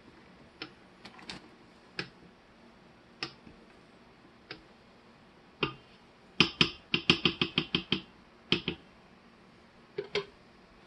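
Sharp taps or knocks, scattered singly at first, then a quick run of about ten in a second and a half around the middle, and a few more near the end.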